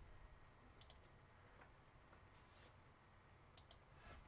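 Near silence with a few faint computer mouse clicks, in quick pairs about a second in and again near the end.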